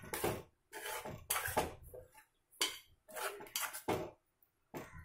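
Metal spoon stirring thick curry gravy and scraping against the sides and bottom of an aluminium pot, in about seven separate strokes with a short pause midway.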